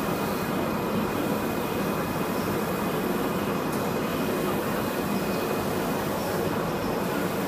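Wide-format roll-to-roll UV printer running steadily, its print-head carriage traversing back and forth across the 3.2 m gantry, a constant mechanical whir with a faint steady whine, over the general noise of an exhibition hall.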